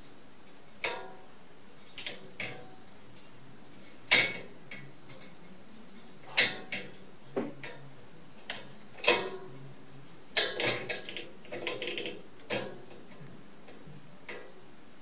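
Metal sliding bolt latch and wire door of a cage clicking and rattling as a cat paws at the latch, trying to work it open. The clinks come irregularly, the loudest knock about four seconds in and a quick run of rattles between about ten and twelve seconds.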